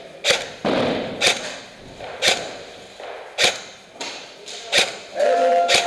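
Airsoft gun fired in single shots: six sharp cracks about a second apart.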